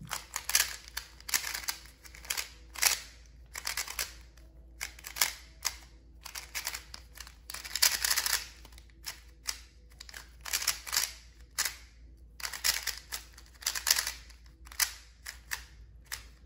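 Qiyi MS magnetic 3x3 speed cube being turned fast in a speedsolve: rapid clacking of plastic layers in quick runs of turns, broken by short pauses.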